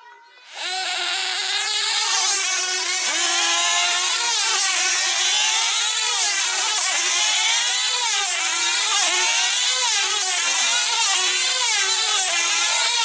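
Small diesel engines of three F2C team-race control-line models start about half a second in and then run flat out at a high-pitched whine. The pitch wavers up and down over and over as the models circle the pilots.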